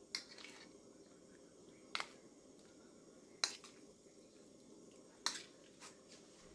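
Sharp clicks and knocks, four in all about one every one and a half to two seconds, with a fainter one near the end, as pieces of marinated pork are tipped from a metal plate onto a ribbed cast-iron grill pan.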